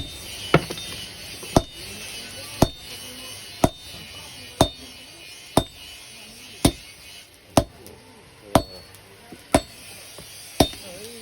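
Hand hammer striking iron on an anvil at a steady pace of about one blow a second, each blow ringing briefly: a blacksmith straightening the iron for a rubber-tapping knife.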